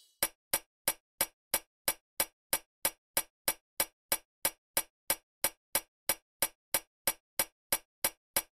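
Clock ticking sound effect: a steady run of sharp, even ticks, about three a second.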